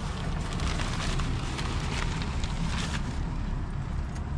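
Wind buffeting the microphone, a steady low rumble, with light rustling of newspaper and paper towels being handled.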